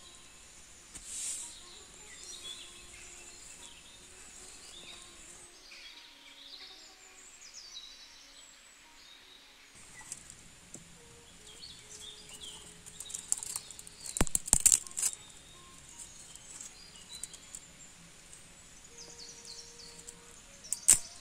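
Birds chirping over a steady high insect drone. Dry twigs are snapped by hand: a quick cluster of sharp snaps about two-thirds of the way through, and one more loud snap near the end.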